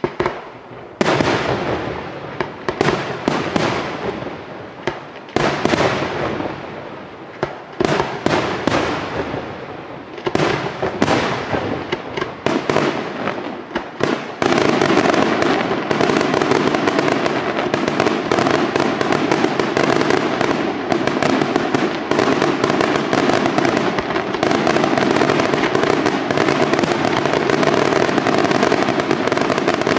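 Aerial fireworks shells bursting overhead with sharp bangs, a few each second at first, then about halfway through merging into a dense, continuous barrage of bangs and crackle.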